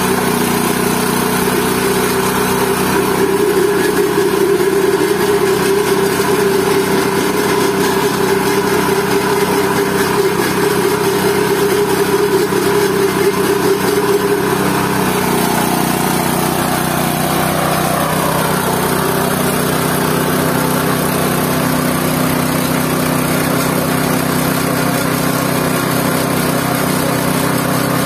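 GT-14 organic-waste pulping machine running steadily with a motor-like hum. About halfway through its note drops over a few seconds, then holds steady at the lower pitch.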